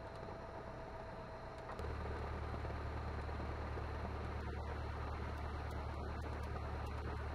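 Cessna 172N's four-cylinder Lycoming engine and propeller running steadily at low power. About two seconds in, the drone becomes louder and deeper, then stays steady.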